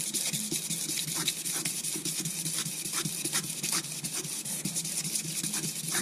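Cord being pulled back and forth around wet-and-dry abrasive paper taped onto a Rover 3.5 V8 crankshaft journal, rasping on each stroke as the journal is lightly polished to remove marks.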